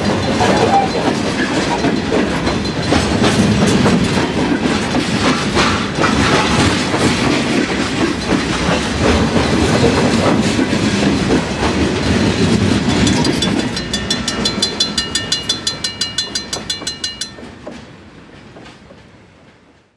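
A freight train's cars rolling past at speed, steel wheels clicking and clattering over the rail joints and the crossing. As the last car clears, a grade-crossing bell is heard dinging rapidly for a few seconds, stops about three seconds before the end, and the sound then fades away.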